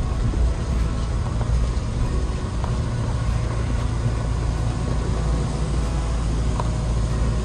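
A motor vehicle's engine and drive running steadily: a constant low rumble with a faint hiss above it.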